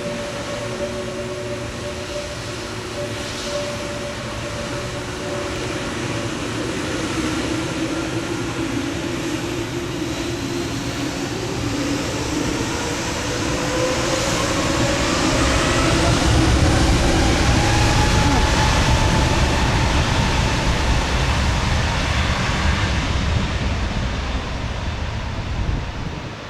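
Airbus A320neo's turbofan engines spooling up for takeoff. Steady whining tones over a rumble begin rising in pitch about ten seconds in, and the noise swells to its loudest a little past halfway, then starts to fade near the end.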